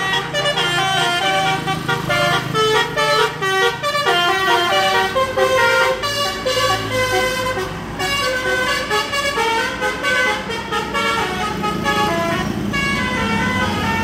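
Bus telolet horn (Basuri multi-tone air horn) playing a quick melody of short stepped notes, over the bus engine running. The tune breaks off briefly about eight seconds in and starts again.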